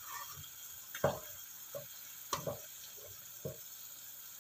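Sauce bubbling and sizzling in a wok around a whole red snapper, with a spatula knocking and scraping against the pan about five times.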